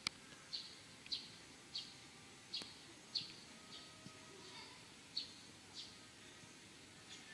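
A small bird chirping over and over, short high notes about every half second, over a faint steady background hiss, with a sharp click at the very start.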